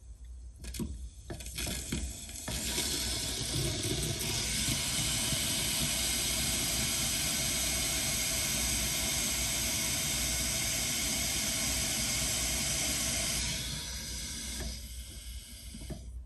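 Water running through a newly installed frost-free outdoor spigot (sillcock) and its supply line as a leak test of the Sharkbite push-fit fittings. A few knocks come in the first two seconds, then the flow starts about two and a half seconds in as a steady hiss, tapers off near fourteen seconds and stops about a second later.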